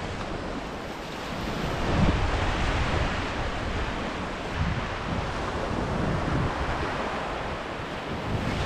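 Ocean surf washing onto a beach, with wind buffeting the microphone.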